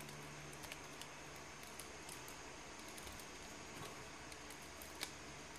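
Faint, scattered small clicks and taps of plastic parts as a small Iron Factory helicopter transforming figure is worked into copter mode, over a steady low hiss. One sharper click comes about five seconds in.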